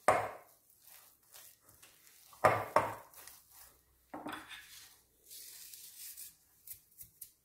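Silicone spatula stirring and scraping a thick burger mixture of chickpeas, quinoa and chopped walnuts around a glass bowl. There are a few separate scrapes, the loudest about two and a half seconds in, with fainter ticks of the spatula on the glass between them.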